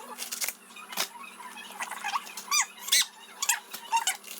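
A knife chopping cos lettuce on a chopping board in sharp, irregular knocks, mixed with high squeaky chirps that rise and fall in pitch. The chirps are loudest about two and a half to three seconds in.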